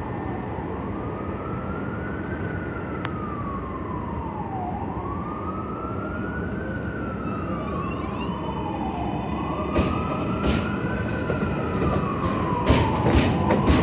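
Emergency vehicle siren wailing, its pitch sliding slowly up and down about every four seconds. In the last few seconds a subway train comes in, its wheels clicking over the rail joints.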